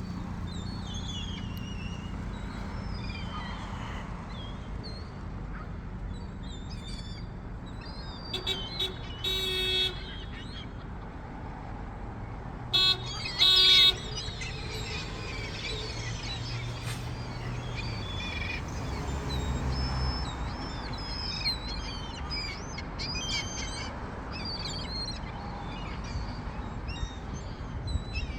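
Seagulls calling over and over in short chirping cries. Louder harsh calls come in two groups, about nine and thirteen seconds in. A low steady rumble runs underneath.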